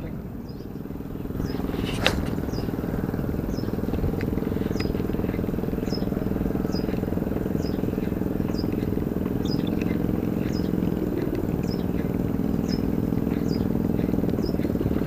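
A steady low engine-like drone, with a short high falling chirp repeating about once a second and a single sharp click about two seconds in.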